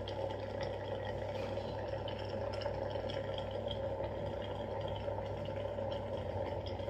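Electric facial steamer running: water boiling inside it with a steady hum and scattered small bubbling pops.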